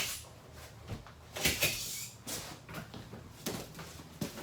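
Handling noise from the dinette being broken down: about half a dozen knocks and thumps of cushions and table parts being moved, with a brief rustle about a second and a half in.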